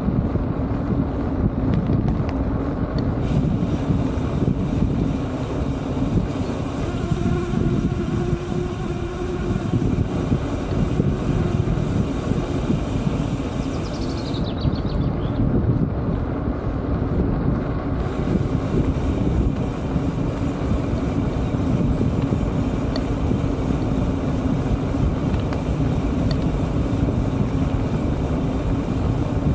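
Wind noise on the microphone of a camera mounted on a moving bicycle, mixed with the steady noise of its tyres rolling on an asphalt road.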